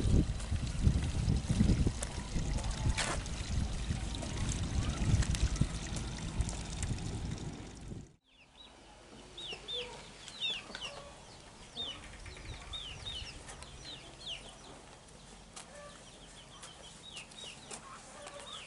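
Outdoor ambience in two parts. For the first eight seconds a loud, rough rushing noise with a few knocks. It breaks off abruptly, and then a quieter background follows with many short, high chirps of birds, heard on and off.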